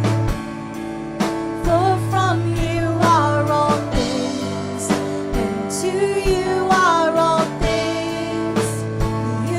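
Live worship band music: sustained chords and bass held under regular drum hits, with a wavering, pitch-bending melodic line on top.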